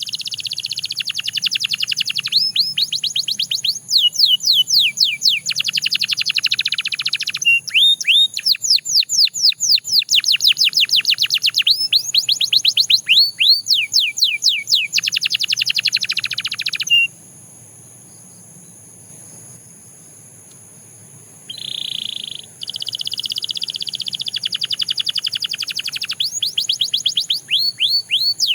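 A Belgian canary singing: fast runs of repeated downward-sliding notes and trills, breaking off for a few seconds past the middle and then starting again.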